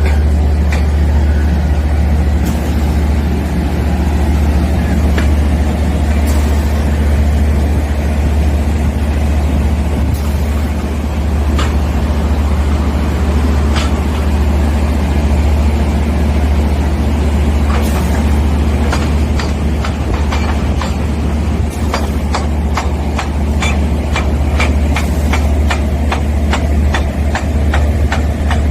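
Reverse-circulation drilling rig running with a loud, steady low drone and occasional sharp knocks. In the last several seconds the knocks become a fast, even run of clicks, about three or four a second.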